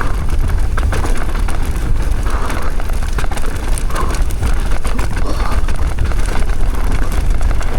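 Wind buffeting the microphone over the tyre noise of a downhill mountain bike riding a dry, loose dirt trail, with frequent clicks and rattles from the bike.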